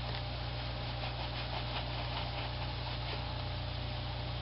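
A microfiber cloth rubs faintly over an iPod Classic's case in short strokes, over a steady low electrical hum.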